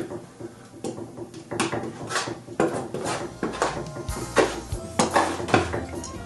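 Palette knife laying paint onto a stretched canvas: a series of short, sudden scraping strokes.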